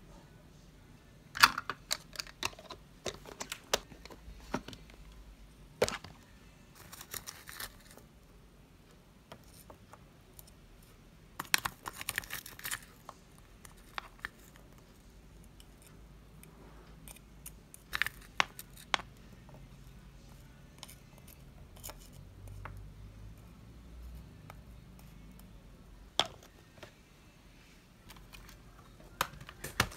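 Light kitchen handling sounds: scattered clicks, taps and short rustles as grapes are picked off their stem and a wooden spoon scoops blueberries from a glass container into a ceramic ramekin of yogurt.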